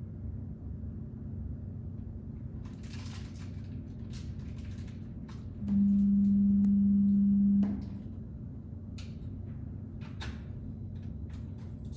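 Fire alarm speaker strobe giving out a single loud, steady low tone for about two seconds about halfway through, over a continuous low hum from the speaker circuit. This is typical of a glitch from the retrofitted system's old analog amplifiers before the voice message starts. A few light clicks and rustles sit around it.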